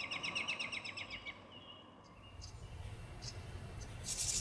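House wren singing its bubbling song: one quick run of rapid notes lasting about a second and a half. Near the end a high, fast-pulsing buzz begins.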